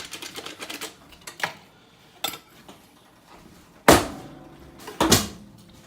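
A few sharp knocks and clanks of cookware and kitchen fittings being handled, the loudest about four seconds in and another about a second later.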